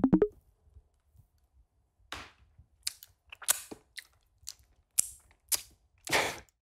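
A descending run of music notes ends just after the start, then about eight short, sharp clicks and brief puffs of noise come at irregular intervals over the last four seconds.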